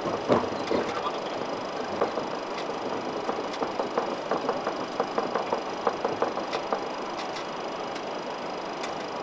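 Cockpit noise of a Boeing 737-500 taxiing: a steady rush with faint high whines, broken by irregular clicks and rattles, thickest in the middle.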